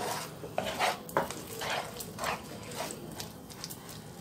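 Wooden spatula stirring and scraping sticky caramel with chopped almonds and cashews around a pan: short, irregular scraping strokes, about two a second.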